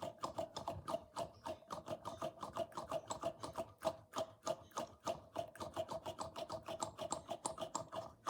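Small fidget-toy balls clicking against each other in quick, uneven succession, about seven clicks a second, each with a short ringing note.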